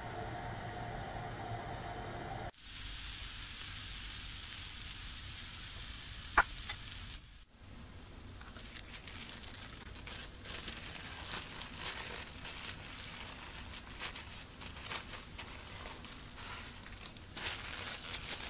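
A pita-bread chicken shawarma wrap toasting on a hot grill pan, sizzling with scattered crackles. A sharp click comes about six seconds in.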